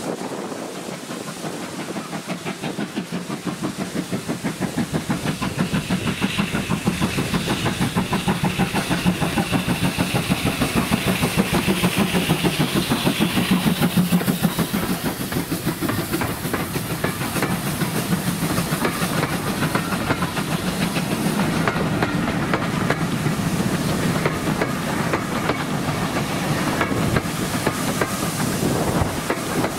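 GWR 2800 class 2-8-0 steam locomotive 2857 working a passenger train past, its exhaust beating in a steady rhythm. The beats grow louder as it approaches and are loudest as it passes close, about halfway through. After that the coaches run by with a steadier rolling sound.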